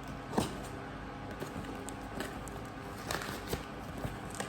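A parcel being handled and opened by hand: a few scattered light clicks and taps.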